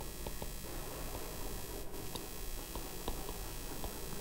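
Steady faint hiss with scattered light ticks of a stylus writing on a pen tablet.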